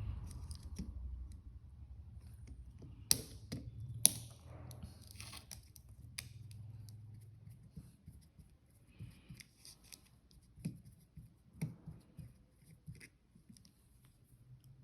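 Small clicks, taps and rustles of objects being handled, with two sharp clicks about three and four seconds in and lighter ticks later on.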